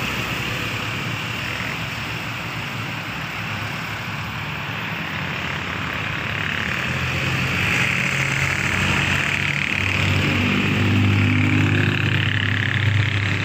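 A vehicle engine running at low speed under a steady hiss, its low hum growing louder and fuller over the last few seconds.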